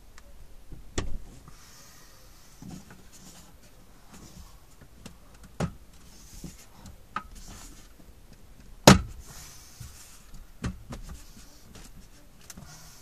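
Hands working in a car's dashboard stereo opening: scattered sharp clicks and knocks from handling the parts, about five, the loudest a little before nine seconds in, with quieter rustling between.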